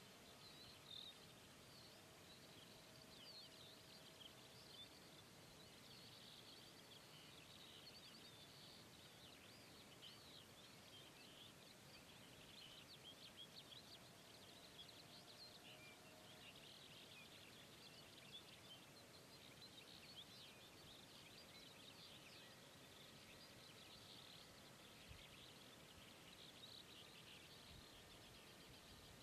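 Near silence: faint hiss with faint, continual bird chirping.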